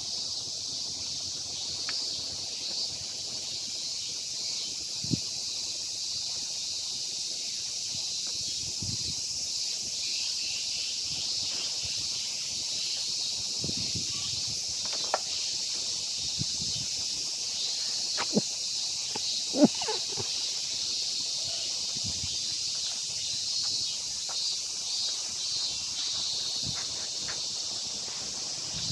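A steady, high chorus of cicadas singing, with a few faint knocks scattered through and a louder thump about two-thirds of the way in.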